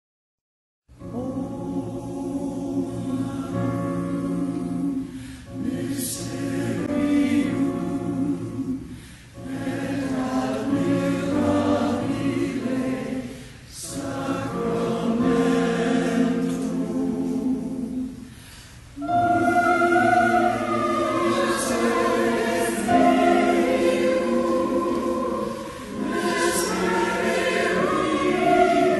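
A choir singing in long sustained phrases, starting about a second in, with brief breaks between phrases.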